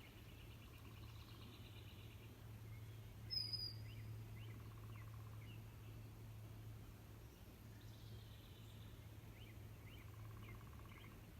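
Faint wild songbirds chirping and trilling over a low steady hum, with one sharper, louder chirp about three and a half seconds in.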